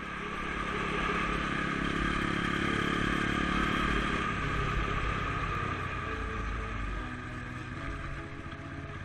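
Dirt bike engine running under way, easing off from about six seconds in.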